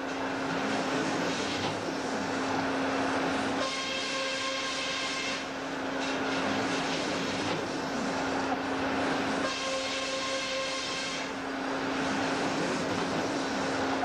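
Portable sawmill running: a steady engine and saw hum, broken by three stretches of louder rushing noise, each about three to four seconds long, as the blade cuts through wood. Between the cuts the blade runs free with a clear whine.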